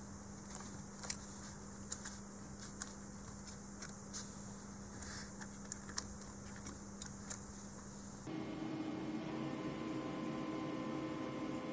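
Push-button switches on a homemade CNC remote pendant being pressed: about a dozen irregular single clicks. About eight seconds in this gives way to a steady hum with several steady tones from the powered-up desktop CNC router.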